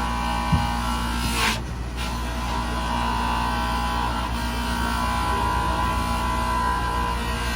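Motor-driven soft polishing wheel running steadily, buffing a brass piece, with a steady hum and whine. A short louder rasp comes about a second and a half in.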